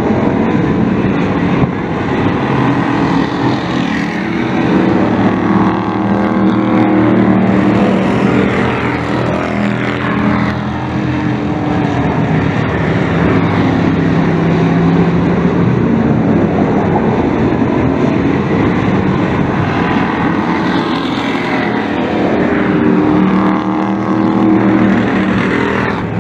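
Dirt-track race trucks' engines running hard around the oval, a continuous loud drone whose pitch rises and falls several times as trucks pass by.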